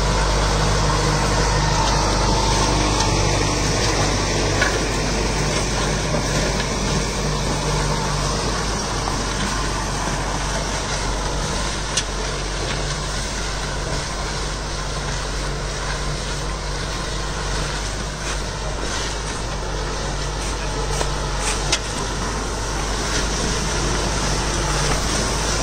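Kubota tractor's diesel engine running steadily under load while pulling a disc harrow, the discs churning through soil and chopped banana stalks. There is a sharp knock about halfway through and another near the end.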